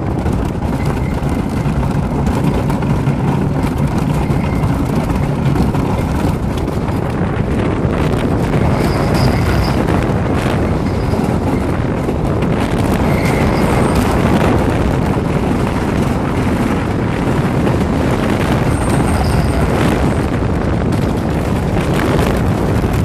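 Thunder Road wooden roller coaster train running along its wooden track at speed, a steady loud rumble.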